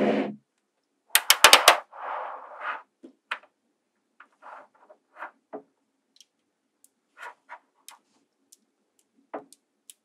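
Small magnetic balls clicking and snapping together as they are handled and folded into a cube: a quick run of about six sharp clicks a second in, then a short rattle and scattered single clicks. A rush of noise fades out at the very start.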